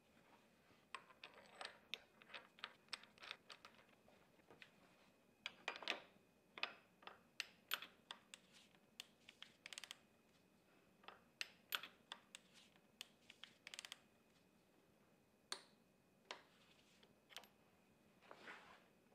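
Irregular runs of sharp clicks and light knocks, several a second at times, from hand-tool work on an engine.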